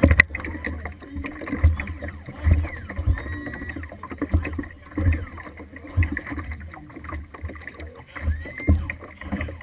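Water lapping and slapping against the hull of a tunnel-hull race boat sitting on the water, heard as irregular low thumps.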